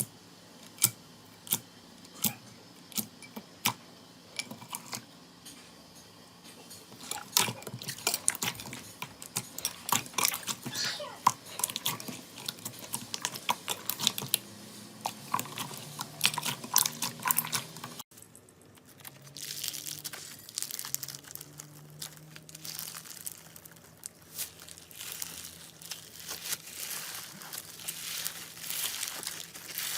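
Slime being squeezed and pressed in the hands, giving sharp pops and crackles. There are a few separate pops in the first seconds, then denser crackling. The sound breaks off briefly about 18 seconds in, where one clip gives way to the next, and the crackling resumes.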